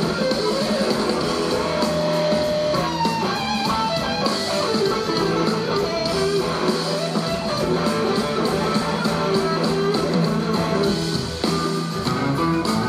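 A live blues-rock band playing, with an electric guitar lead on a red SG-style guitar over drums and bass; the lead has notes that glide up and down in pitch.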